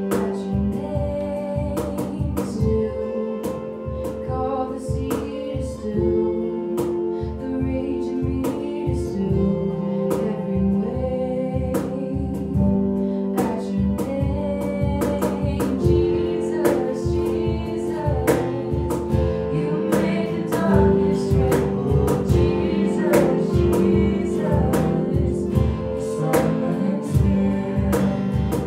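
Live worship band playing a song on acoustic and electric guitars, with a steady strummed rhythm.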